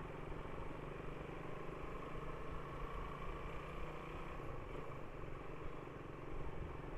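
Motorcycle engine running steadily at low speed in slow traffic, with the hum of surrounding vehicles.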